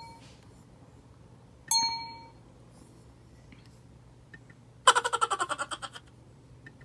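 A short, bright electronic ding about 1.7 s in, then about a second of rapid ringing pulses, about a dozen a second, near the end.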